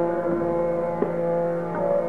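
Hindustani classical vocal music in Raga Chayanat: long held notes over a tanpura drone, with a single tabla stroke about halfway and a change of note near the end.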